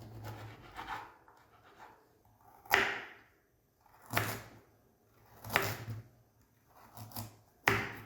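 A series of sharp knocks, about five, roughly a second and a half apart, each with a short ring after it, over a faint low hum.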